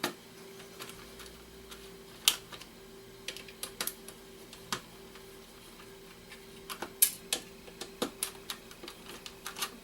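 Scattered clicks and taps of hand tools working on the plastic and metal casing of a GameCube disc drive as it is being opened, over a faint steady hum.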